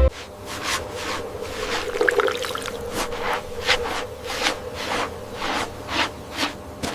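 Quick rhythmic rubbing strokes, about two or three a second, each a short scraping swish.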